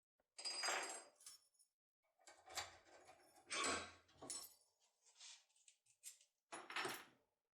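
A tin-foil lockpick working inside an ABUS XD25 lock cylinder: metallic clicking and scraping in three short irregular bursts.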